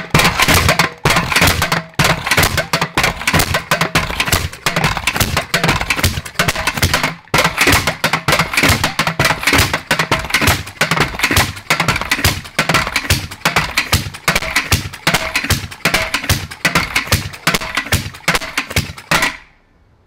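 Barco BR-5 gas rammer's two-stroke free-piston engine running, a fast, uneven string of sharp pops. It cuts off suddenly near the end.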